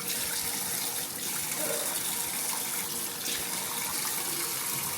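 Water running steadily from a tap, stopping suddenly at the very end.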